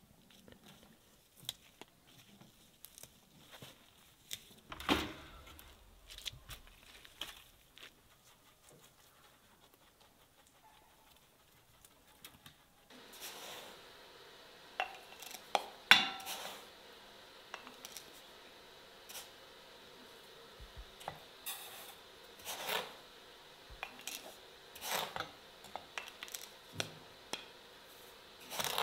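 Scattered clinks and knocks of dishes and cutlery being handled. A faint steady background hiss comes in about halfway through, and the loudest knock falls a little after it.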